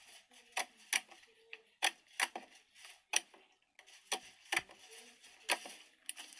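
Slime being kneaded and squeezed by hand, giving irregular sharp wet pops and clicks, about eight of them, as trapped air bursts, over a soft sticky crackling hiss.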